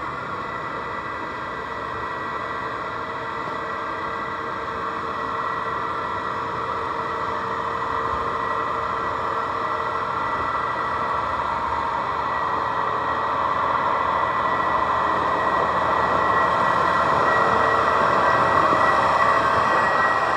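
Case IH Magnum 380 Rowtrac tractor's diesel engine running as the tractor drives slowly past, growing steadily louder as it approaches, with a steady high whine over the engine sound.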